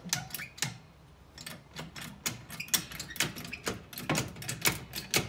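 A jack being pumped to raise the car's lower control arm: sharp metallic clicks and clanks, a few scattered at first, then about two a second.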